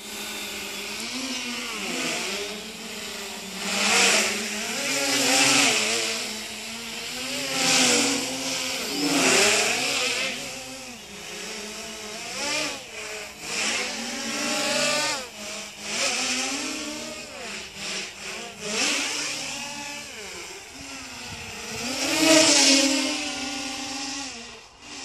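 Y6 multirotor (DJI F550 frame, six brushless motors on 10-inch propellers) in acrobatic flight. The motors and props whine and buzz, their pitch rising and falling continually as the throttle is worked. Several loud swells come through, one of the strongest near the end.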